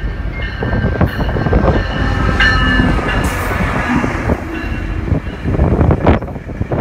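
GO Transit commuter train, a diesel locomotive leading bilevel coaches, running past at close range: loud low rumble of the engine and wheels on the rails. Steady high tones ring over it for the first few seconds as the locomotive goes by, and sharp knocks come through now and then.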